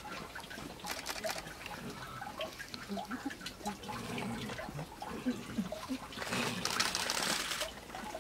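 Water trickling and dripping, with many small ticks and a faint murmur of voices; a louder hiss rises for a second or so near the end.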